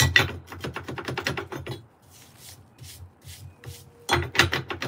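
Rapid clicking and rattling of metal parts handled by hand as an e-Rides pedal and its mounting hardware are fitted to an electric unicycle's pedal mount, with softer scraping in between and a second run of clicks near the end.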